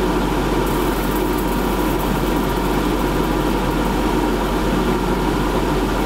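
A freezer running, really loud, with a steady hum. From about a second in, a fine, high crackling joins it as supercooled water freezes rapidly into thin sheets of ice. The uploader links the crackling to fast dendritic ice-crystal growth.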